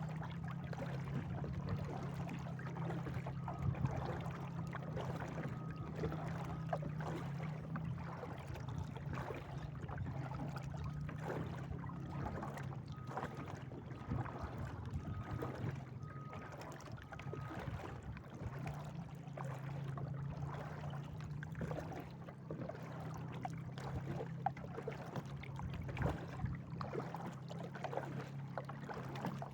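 Kayak being paddled, water splashing and trickling irregularly against the hull and paddle, over a steady low hum.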